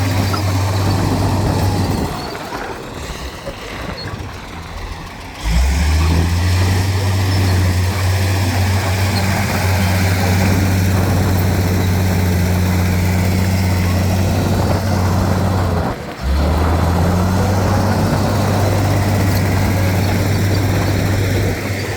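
Heavy diesel engine of earthmoving machinery running with a steady low drone. It drops to a quieter, rougher sound for a few seconds early on, then comes back suddenly at full strength; a brief break comes about three quarters of the way through.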